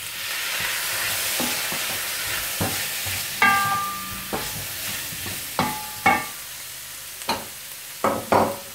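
Vegetables sizzling in a hot stainless steel sauté pan, the hiss swelling as green beans are tipped in. A wooden spoon then stirs them, knocking sharply against the pan several times, some knocks leaving a short metallic ring.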